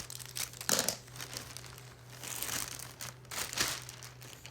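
Packaging crinkling in repeated bursts as it is handled and pulled open.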